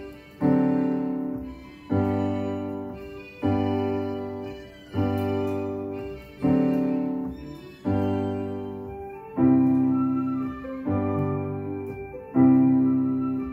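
Electronic keyboard played in a piano voice: two-handed chords struck about every one and a half seconds, each ringing and fading before the next.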